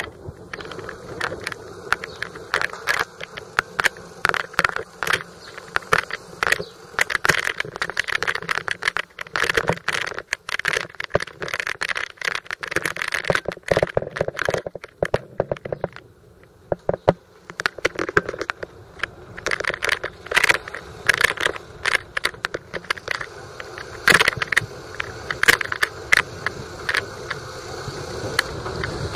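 Bicycle clattering and rattling as it rides over a gritty, mud-covered street, with tyres crunching over a steady whirr. It eases briefly about halfway through.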